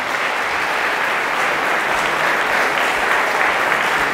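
Audience applauding steadily in a hall at the end of a talk.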